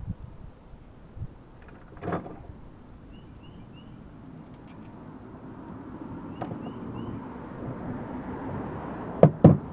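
Hand work on metal parts and tools: a sharp clink about two seconds in and two hard knocks close together near the end, over a low rustling background.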